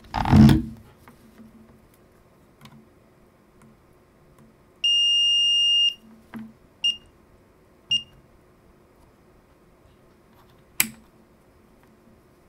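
Brymen digital multimeter's continuity beeper: one steady high beep lasting about a second, then two short beeps about a second apart, as test probes touch the camera's gold-plated contacts. On continuity, the beep means low resistance across the contacts. A brief handling noise comes at the start and a sharp click near the end.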